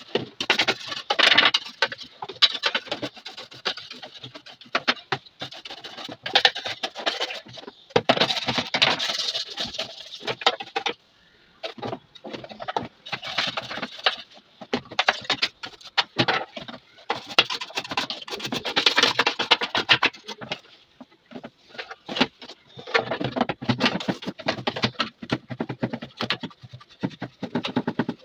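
Irregular clicking, tapping and rattling of small hard parts being handled, in uneven clusters with short pauses between them.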